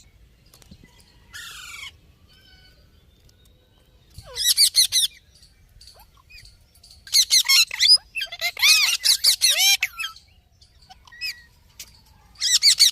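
Pet parrot squawking in several harsh, screeching bouts, the longest about a second and a half just past the middle, with a few short chirps between.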